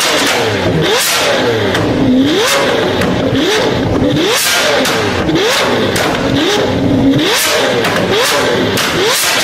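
Lamborghini Aventador LP700's V12 blipped again and again through a straight-through catless Fi valvetronic exhaust, about once a second. Each rev climbs quickly and falls back more slowly, with sharp pops as the revs drop, typical of overrun backfire.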